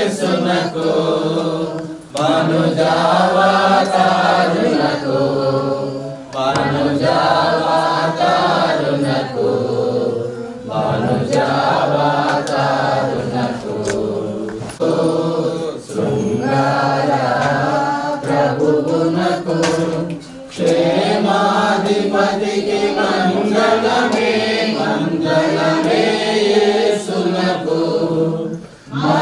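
Voices chanting together in prayer, in long wavering phrases with brief pauses every few seconds.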